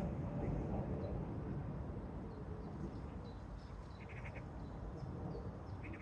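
Birds chirping in short repeated calls, with two quick trilled bursts about four seconds in and at the end, over a low steady rumble.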